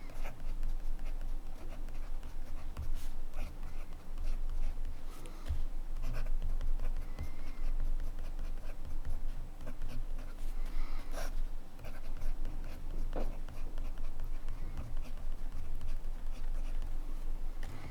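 Montblanc Meisterstück 144 fountain pen nib writing on paper: a run of uneven short pen strokes with small ticks.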